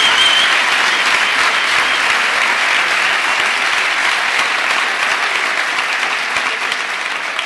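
Large audience applauding: dense, steady clapping that slowly thins toward the end.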